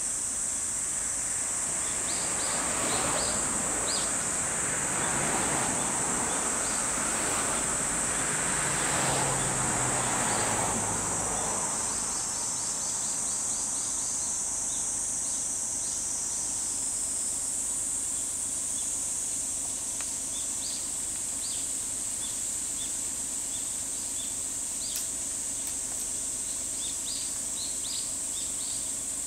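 A steady, high-pitched drone of insects, with short bird chirps scattered throughout and a trill a little before the middle. A broad rushing noise sits under it for the first ten seconds or so, then dies away.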